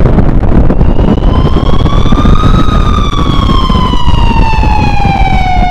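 Title sound effects: a siren wailing over a loud, continuous explosion rumble. The siren's pitch rises for about two and a half seconds, then slowly falls.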